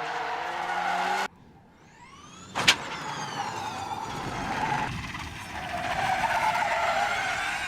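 Rallycross cars at full throttle in quick cuts: an engine revving up that stops abruptly about a second in, then another engine rising in pitch as it accelerates, with one sharp, very loud bang just under three seconds in. Engine noise continues and swells again toward the end.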